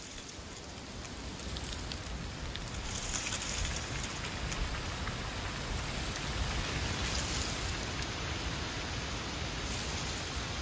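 Steady rain falling on fallen leaves and a wet paved path, an even hiss with fine patters of drops, fading in over the first second or two.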